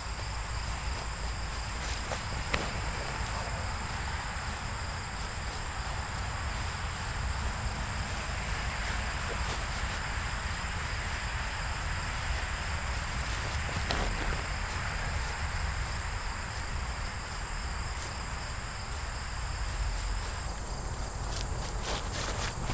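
Steady high-pitched chorus of insects singing in the grass, one unbroken tone held throughout, with a low rumble underneath.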